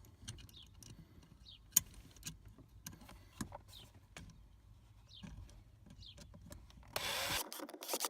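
Faint scraping and small clicks as a nylon locking nut is worked onto a pedal mounting bolt, with a sharp click about two seconds in and a louder burst of noise near the end.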